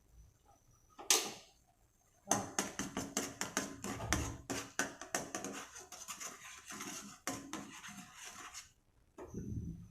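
Kitchen utensil clattering and scraping against cookware in a rapid, uneven run of knocks lasting several seconds, after a single scrape about a second in.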